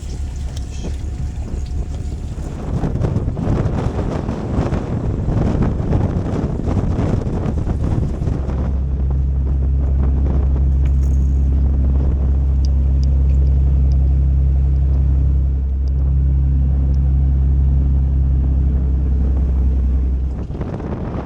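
Fishing boat's engine running with wind rushing over the microphone and water noise. A steady low engine drone comes up about a third of the way in, holds, and drops away shortly before the end.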